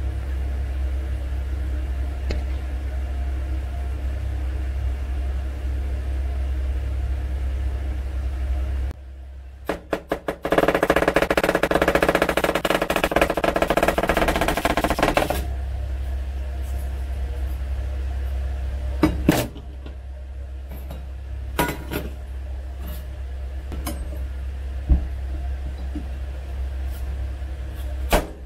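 Chef's knife slicing an onion on a cutting board: a fast run of strokes lasting about five seconds, a third of the way in, then a few sharp knocks of the blade on the board. A steady low hum sits under the quieter stretches.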